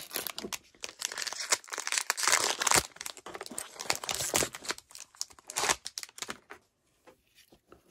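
Foil trading-card pack wrapper crinkling and tearing as it is ripped open by hand: a dense run of quick crackly rustles that stops about six seconds in.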